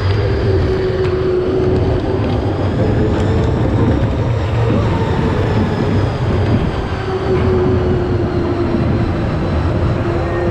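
Amusement-park rail ride running along its track: a steady rumble with a thin whine that slowly falls in pitch, fades about halfway through and returns.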